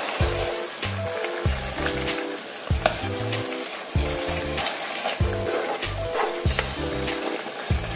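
Sweet and sour sauce with vegetables bubbling and sizzling in a pan as a wooden spatula stirs it and potato starch slurry is added to thicken it, with scattered small knocks and ticks. Background music with a steady beat plays over it.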